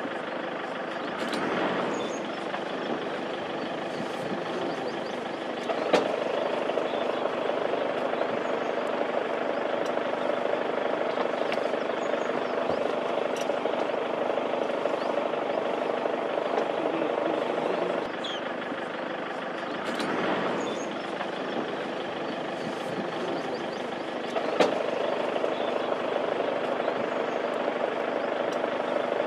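A vehicle engine idling with a steady hum, stepping up a little in level twice, each time with a sharp click.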